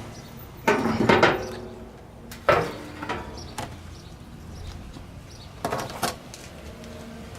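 Metal knocking and clattering in three bursts, about a second in, at two and a half seconds, and near six seconds, as ribs are handled and hung on the hooks and rods of a Barrel House Cooker barrel smoker.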